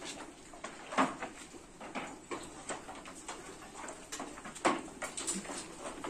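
Sheep moving about on a raised wooden slatted floor, their hooves knocking on the boards now and then, with the sharpest knocks about a second in and past the middle.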